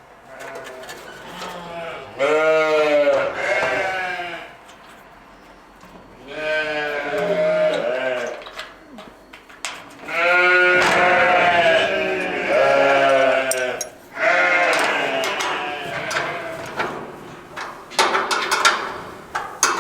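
Sheep bleating: several long, quavering calls one after another, with a few knocks near the end.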